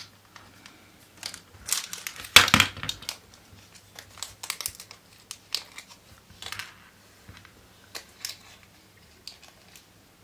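Small clear plastic parts bag crinkling in the fingers in irregular spurts, loudest about two and a half seconds in, as it is worked open to get a screw out.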